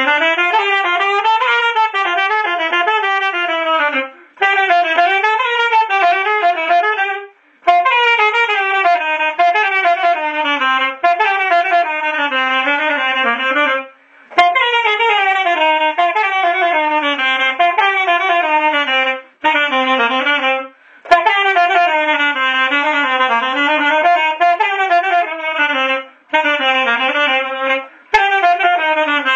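Unaccompanied saxophone playing a fast, heavily ornamented melody that winds up and down. It comes in phrases a few seconds long, about eight of them, each separated by a brief silent pause.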